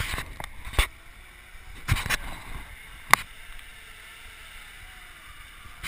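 Zip line gear being handled: several knocks and thumps in the first two seconds, then a single short metallic clink with a brief ring about three seconds in.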